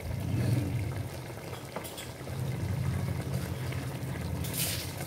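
A pot of chicken pieces in tomato-spice masala and water simmering steadily on the stove, with salt sprinkled in at the start. A short hiss comes near the end.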